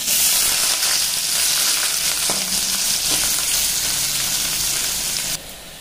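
Chopped onion sizzling loudly as it drops into hot oil in a kadai with frying green chilli and whole spices, with a couple of faint taps in the middle. The sizzle cuts off suddenly near the end.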